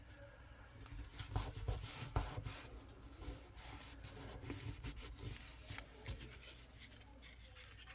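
Card stock being handled and laid down: soft rustling and rubbing of paper with light, irregular taps.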